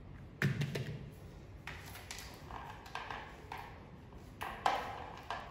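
Hands tapping and knocking on a textured plastic mat: a series of irregular light taps, some with a brief ring, with a louder knock and thud about half a second in and another near the end.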